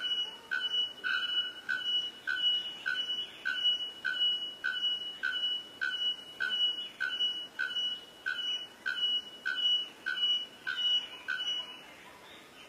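Bare-throated bellbird calling: a steady run of loud, metallic, bell-like notes repeated about twice a second, stopping shortly before the end.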